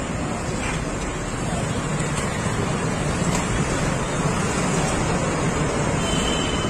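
Steady rushing noise from a street crowd and passing traffic, with wind buffeting the phone's microphone.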